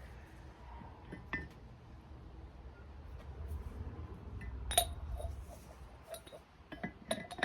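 Steel adapter rings from a ball joint press kit clinking against each other and against metal as they are handled and tried for fit. One loud ringing clink about five seconds in, then several sharper clinks near the end.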